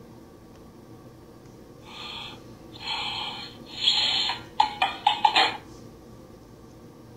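Online math game's correct-answer sound effect from a laptop speaker: three short whooshes, then a quick run of five or six sharp pops.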